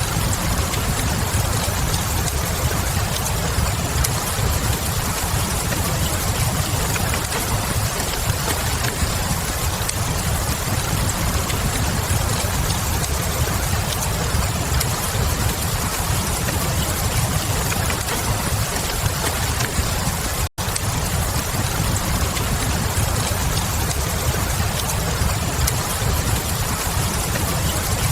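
Steady rain with a low rumble underneath and faint fireplace crackle, forming an even, unchanging bed of noise. The sound cuts out completely for a split second about two-thirds of the way in.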